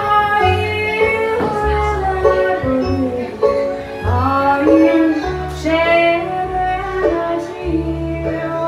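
Live acoustic string band: a woman sings the lead melody over strummed acoustic guitar, picked banjo, upright bass and fiddle.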